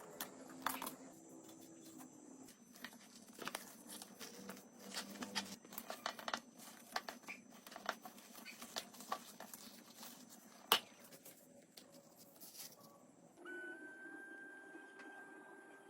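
Irregular taps, clicks and rustling from hands handling and working on an old fire bellows, with one sharp click about two-thirds of the way in. For the last couple of seconds a steady whine joins in.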